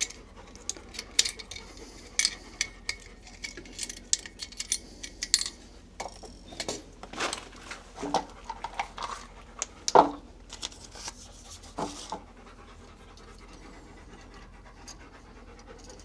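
A dog panting in quick breaths, loudest in the middle stretch. Light metal clinks in the first few seconds come from tools working on the well pump's fittings.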